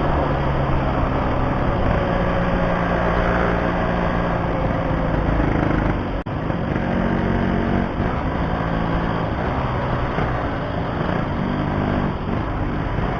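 Yamaha RX-King two-stroke single-cylinder motorcycle engine running on the move, its pitch rising and falling with the throttle. There is a momentary break in the sound about six seconds in.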